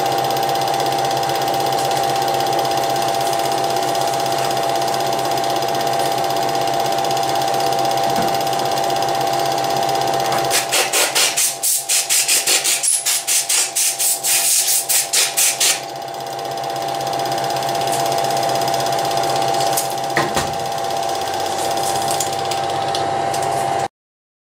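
Cine film projector running: a steady mechanical whirr with a held hum. For about five seconds in the middle it clatters, about four clicks a second. It cuts off suddenly near the end.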